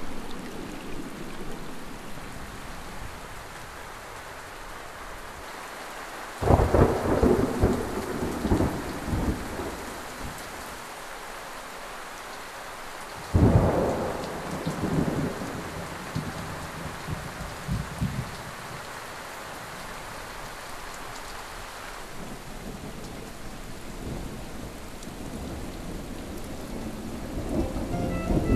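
Thunderstorm sound effect: steady rain with two sudden claps of thunder, about six and thirteen seconds in, each rumbling away over a few seconds. Music begins right at the end.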